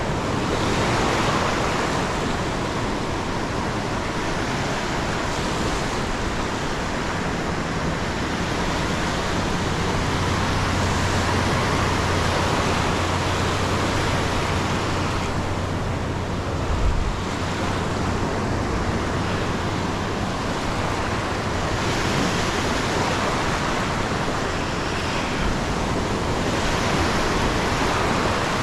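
Surf washing in and breaking on a sandy beach: a steady rushing hiss that swells and eases a little, with wind rumbling on the microphone. A brief low bump comes about halfway through.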